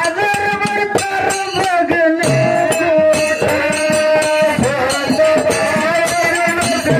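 Live bhajana pada devotional folk music: long held sung notes over a quick rattling percussion beat.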